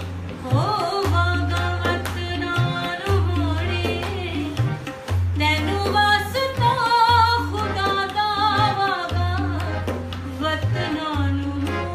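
A woman singing a Sufi song live, with wavering vocal ornaments, accompanied by a harmonium and the strokes of a tabla.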